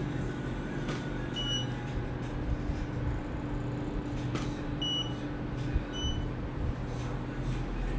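Short, high electronic beeps from photography equipment during a studio shoot: three of them, one about a second and a half in and two close together past the middle, with a few faint clicks, over a steady room hum.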